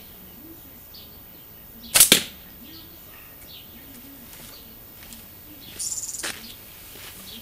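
A homemade bamboo shooter fired once about two seconds in: a sharp, loud double crack. A softer scratchy rustle follows near the six-second mark.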